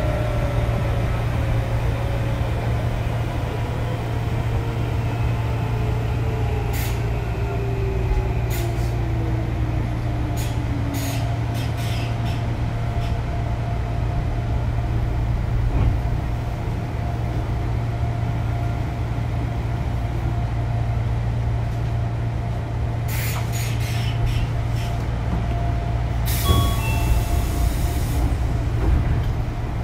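Chopper-controlled Odakyu 8000 series electric train running and slowing on the way into a station. Over a steady low hum, the motor whine falls steadily in pitch through the first dozen seconds, wheels click over rail joints, and a burst of air hiss comes about three-quarters of the way through.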